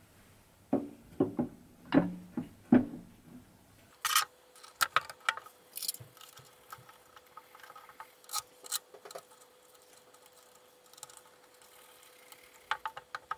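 Knocks and clicks of a CNC lathe's tool turret being handled and fitted back onto the cross slide: a few dull thumps in the first three seconds, then sharper scattered clicks and taps.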